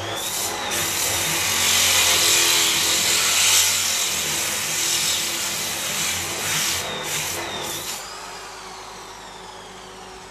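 Handheld electric grinder with a round abrasive pad grinding a sintered stone countertop: a steady harsh hiss of pad on stone for about eight seconds. Then the level drops as the pad comes off the slab, leaving the motor's whine winding down.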